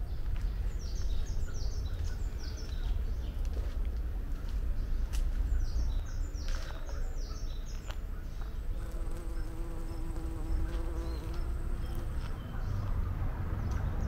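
Songbirds singing in quick, high chirping phrases, in two spells during the first half. In the second half a flying insect buzzes close by for about three seconds. All of this sits over a low, steady rumble.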